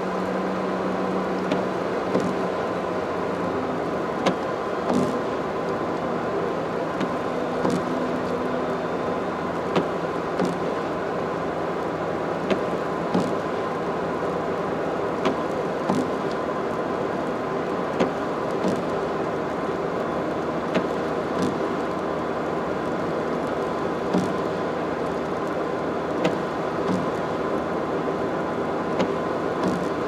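Car driving on an expressway, heard from inside the cabin: steady tyre and road noise, with a short light knock every second or two.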